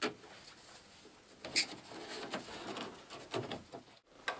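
Hands handling and fastening a black electrical cable against a wall: rustling and rubbing with a few sharp clicks, the loudest about one and a half seconds in.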